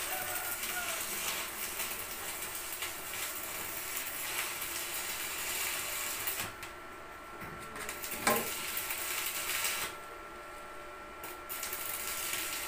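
Electric arc welding on steel reinforcing bars: the arc's steady crackling hiss, in three runs with short breaks between welds. A single sharp knock sounds a little after the middle, the loudest moment.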